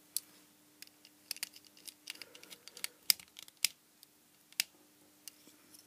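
Small screwdriver working the screws of a miniature PCB screw terminal block while wires are fitted and the circuit board is handled: a scatter of light, irregular clicks and small scrapes.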